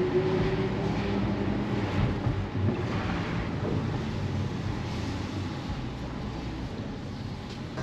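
Car engines running steadily at cruising speed, with road and wind noise, heard from inside a following car. The sound slowly gets quieter toward the end.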